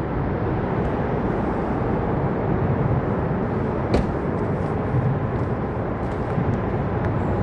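Freight train rolling through a grade crossing: a steady rumble, with one sharp click about four seconds in.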